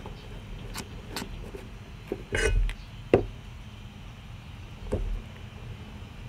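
Silicone spatula scraping and knocking against a metal saucepan while stirring a thick, cooked milk-and-cornstarch mixture. There are a few separate knocks and scrapes, with a longer scrape about two and a half seconds in, the sharpest knock just after three seconds, and another short scrape near the end.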